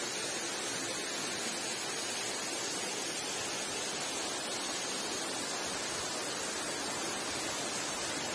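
Steady, even rush of a waterfall's cascades falling into a pool.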